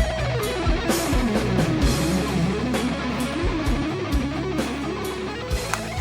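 Instrumental rock-style music: electric guitar playing sliding, bending notes over drums.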